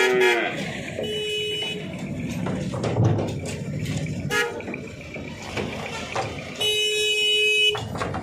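A vehicle horn sounds twice: a short steady toot about a second in and a longer one of about a second near the end. Between them there is a heavy low thump about three seconds in, over a constant crowd-and-traffic background.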